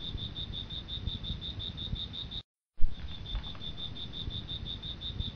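Insect chirping in a steady, rapid pulse of high-pitched notes, about eight a second, over a low rumble. It breaks off for a moment about two and a half seconds in, then goes on as before.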